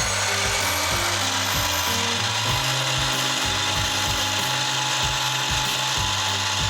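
Table saw running steadily while its blade cuts partway into a vinyl flooring plank, scoring along the blade's arc without going all the way through.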